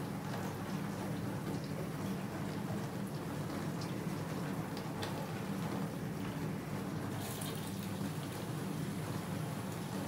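Bosch built-in dishwasher running a wash cycle: a steady low pump hum under water spraying and splashing inside the tub, with a brighter hiss joining about seven seconds in.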